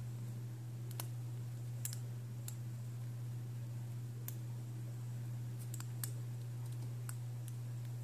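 Lock pick and tension wrench working the pin tumblers of a padlock: a handful of small, sharp metallic clicks at irregular intervals, over a steady low hum.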